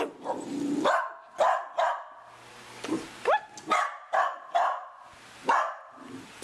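A puppy barking repeatedly: about ten short barks in quick runs, one about halfway through sliding up into a yip.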